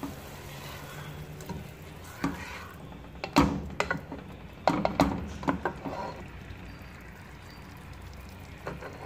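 A plastic spatula stirring whisked yogurt into a thick masala curry in a non-stick pot, knocking and scraping against the pan several times from about two seconds in, over a steady sizzle.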